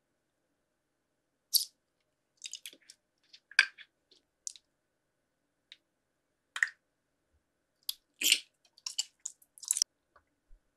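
Close-miked ASMR eating: crisp bites and chewing of hard molded pink candy shapes. The sound comes as separate clicky crunches with silent gaps between them, and a quicker run of crunches in the last few seconds.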